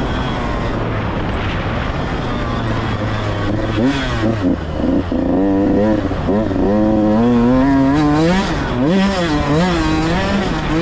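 Dirt bike engine running hard on the track. Its pitch holds fairly steady for the first few seconds, then from about four seconds in it revs up and drops back again and again as the throttle is opened and rolled off.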